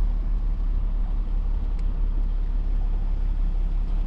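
Steady low engine and road rumble inside the cab of a Ram truck being driven slowly.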